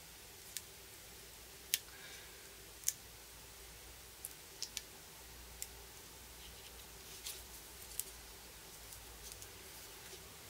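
Faint, scattered clicks and ticks of a pointed weeding tool picking tiny waste pieces off contour-cut transfer paper, about a dozen at irregular intervals.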